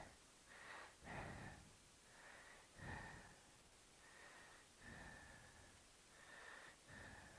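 Near silence with faint breathing close to the microphone, a soft puff every second or two.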